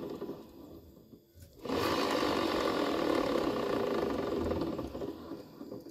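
Honda Vario 110's rear wheel and CVT turned by hand with the engine off, giving a rough, grinding "ngorok" whirr. It fades out, then a fresh spin starts a little under two seconds in, runs steady for about three seconds and dies away. The mechanic suspects a worn or loose bearing inside the rear pulley.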